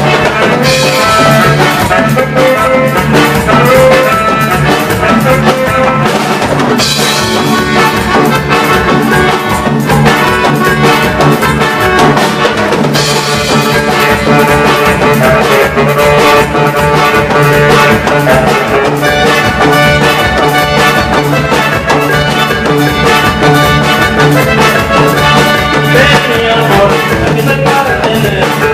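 Instrumental break of a band's song: a brass section over a drum kit keeping a steady dance beat, with no singing.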